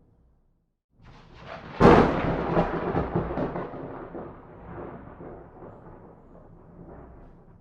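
A thunderclap: after a second of silence, a rumble builds into a sharp crack about two seconds in, then a long rolling rumble slowly fades away.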